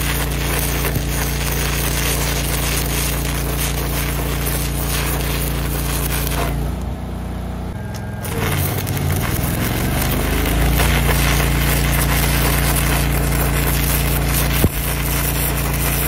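Airless arc gouging rod (Electra AAA, run DCEN) crackling and hissing steadily as it gouges out weld in steel. No compressed-air blast goes with it. The arc stops for about a second and a half midway, is struck again, and gives one sharp pop near the end. A steady engine hum runs underneath, sliding in pitch as the arc is restruck.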